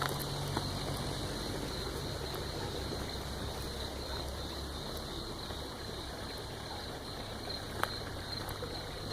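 Steady rush of running water, with a low hum that fades out about five seconds in.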